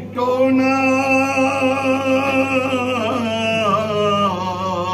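A man singing a devotional chant solo into a microphone, holding one long wavering note for about three seconds, then sliding down into a new phrase.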